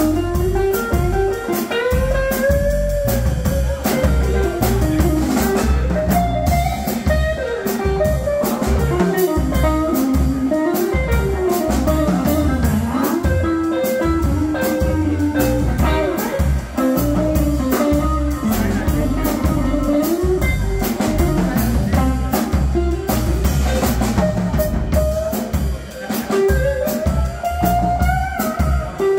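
Live blues played by a trio: an electric guitar plays lead lines with bent notes over an upright double bass and a drum kit.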